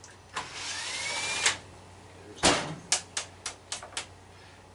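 Cordless drill running for about a second, its whine rising in pitch as it spins up, then stopping with a click. Then comes a loud knock followed by a quick string of about six sharp clicks.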